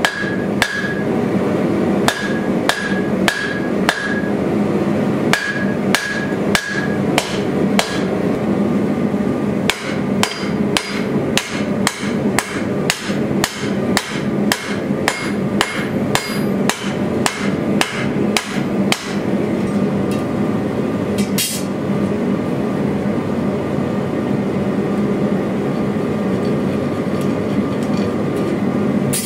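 Hand hammer striking red-hot leaf spring steel on an anvil, about two blows a second, some with a clear anvil ring. The blows stop after about 19 seconds, with one more strike a couple of seconds later. A steady rushing noise from the forge runs underneath and is left alone near the end.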